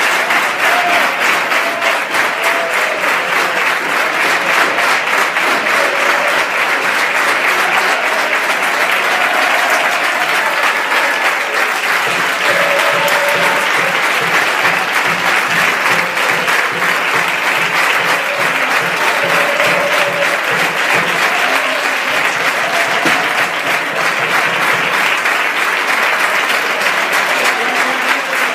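Stadium crowd of football fans applauding steadily in a long ovation for their players.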